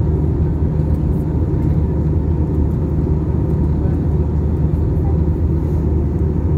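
Steady cabin noise inside an Airbus A320-family airliner on its approach: an even, low drone of engines and airflow, with a faint steady hum above it.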